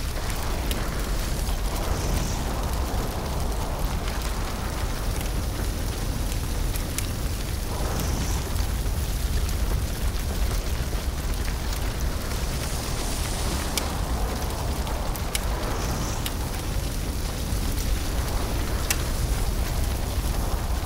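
A large bonfire burning: a steady rush with a deep rumble, scattered sharp crackles and pops, and a few brief swells.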